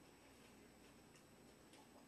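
Near silence with a couple of faint clicks from eating coleslaw with a plastic fork out of a plastic cup.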